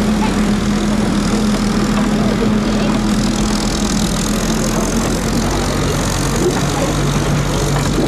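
Tractor diesel engine running while towing an open passenger trailer over bumpy ground, with a constant rattling rumble from the trailer; the engine note drops lower a little over halfway through.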